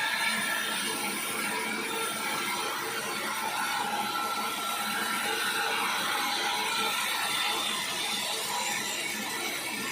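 Sawmill saw running steadily as it cuts an acacia log, a constant mechanical noise with a faint whine that wavers in pitch.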